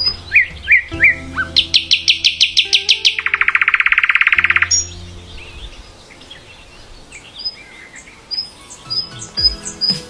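A nightingale singing: a few falling whistled notes, then a loud run of quick repeated notes and a very fast rattle that stops about five seconds in. Softer notes and short, sharp high chirps follow near the end.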